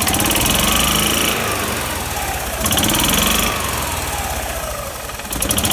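A 1997 Club Car DS golf cart's petrol engine running, revved up and let back down about three times, roughly every two and a half seconds. It is shown as a fully working engine.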